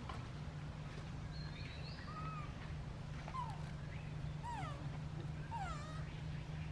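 Baby macaque giving a string of about five short, high calls, each gliding up and then down in pitch. A steady low hum runs underneath.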